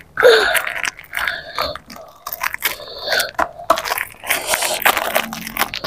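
Close scraping and crackling handling noise as hands rub, grip and turn the lacquered shell of a large hadroh drum, in irregular short bursts.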